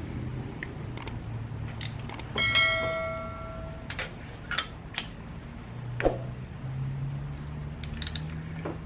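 Hand tools on an engine: a spark plug socket on an extension and 3/8 ratchet being fitted and worked to break the plugs loose, with scattered metal clicks and knocks. About two and a half seconds in, one metallic clang rings on for about a second and a half.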